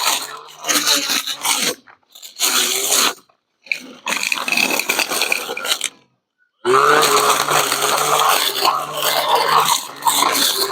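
Cordless 21-volt lithium-ion brush cutter cutting grass and brush: a rushing, crunching scrape as the spinning head tears through the vegetation over a steady motor hum. It comes in bursts broken by three short silent breaks, and about seven seconds in the motor spins back up with a brief rising whine.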